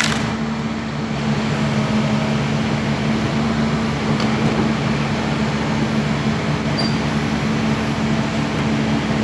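Heavy diesel machinery engine running steadily, with a constant low hum; a sharp click sounds at the very start.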